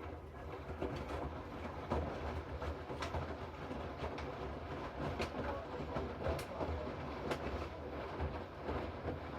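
Hoover washing machine's drum turning a load of rags during a rinse, water sloshing and rumbling with scattered clicks and knocks. It starts at once and holds steady, the way a drum turns for a spell between pauses.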